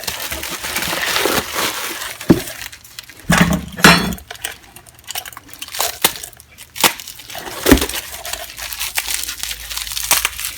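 Old hand tools being handled and unpacked: paper wrapping rustling, with metal tools clinking and knocking against each other and the box several times, the loudest knocks about four and eight seconds in.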